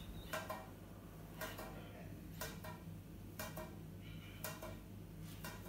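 Faint regular ticking, a pair of short clicks about once a second, over a low steady hum.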